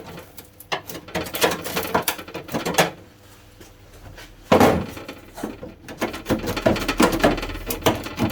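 Irregular clinks, knocks and clatter of sheet steel and hand tools being handled during door-bottom repair work, with a louder knock about four and a half seconds in.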